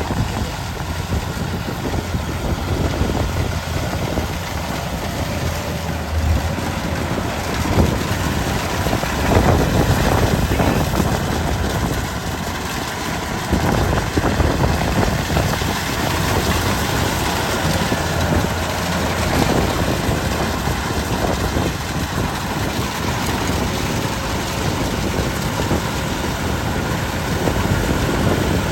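Rice combine harvester's diesel engine running steadily.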